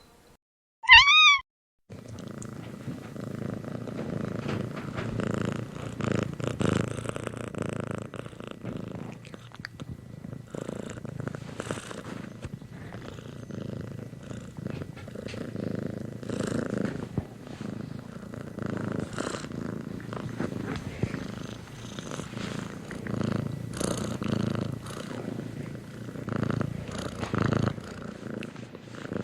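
A domestic cat gives one short, loud meow, then purrs continuously, the purr swelling and fading in repeated pulses.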